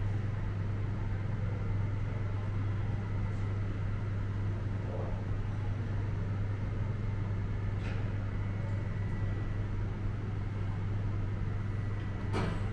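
City street ambience: a steady low hum with a faint high tone over it, and a few sharp clicks near the end.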